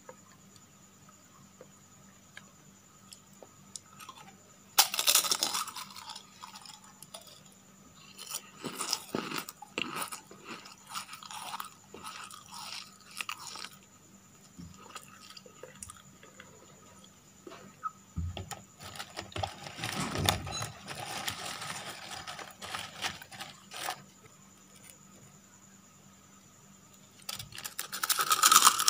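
Crispy rolled wafers being bitten and chewed: sharp dry crunches in bouts, a loud one about five seconds in, then longer runs of crunching and chewing with quiet gaps between, and another loud burst of crunching near the end.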